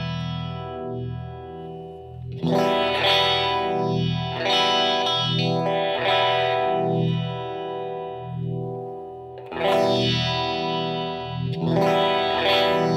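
Clean electric guitar chords played through a Moen Shaky Jimi uni-vibe pedal: a slow, swirling throb sweeps through the ringing chords about once a second. The guitar is a Les Paul on its middle pickup position with the coils split to single-coil. Fresh chords are struck about two seconds in, near ten seconds and again near twelve seconds.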